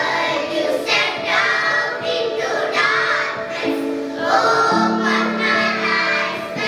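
A group of children singing a prayer song in unison, with steady sustained accompaniment under the voices.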